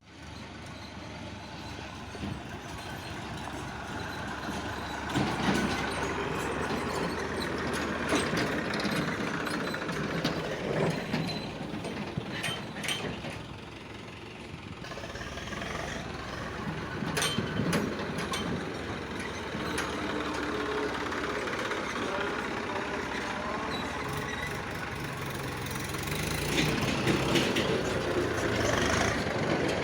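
JCB 3DX backhoe loader's diesel engine running under varying load, swelling and easing as it works, with occasional sharp knocks.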